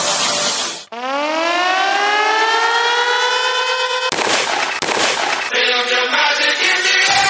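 A dance-mix music track cuts out, a siren-like tone rises steadily in pitch for about three seconds, two loud noise blasts hit, and then the next song kicks in.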